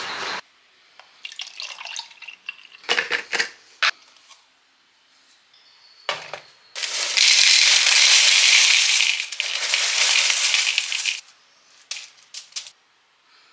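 Dry cereal flakes poured into a plastic bowl: a loud rattling hiss of about four seconds that starts and stops abruptly. Before it come a few knocks and rustles of handling, and near the end a few light clicks of a spoon cutting banana into the bowl.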